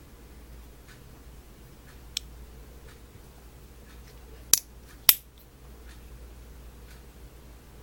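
Two sharp clicks about half a second apart, over faint ticking roughly once a second.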